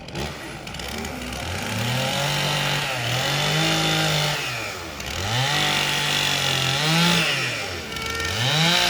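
Gas chainsaw carving wood. Its engine revs up to full speed and holds there for a second or two, then drops back, about three times over.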